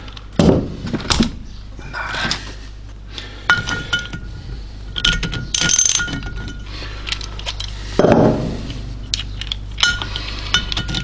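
Metal clinks and taps of a half-inch-drive stud extractor being worked on, and knocked off, a stud in an Austin A-Series cylinder head. About a dozen separate sharp knocks, several leaving a short metallic ring.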